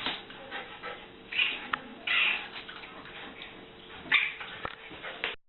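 A cat calling in three short bursts over a faint steady hum, cut off abruptly near the end.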